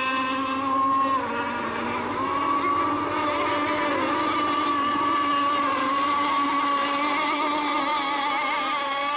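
Racing radio-controlled boats running flat out on the water, a steady high-pitched motor whine with several overlapping tones. The pitch dips slightly about a second in, then holds steady.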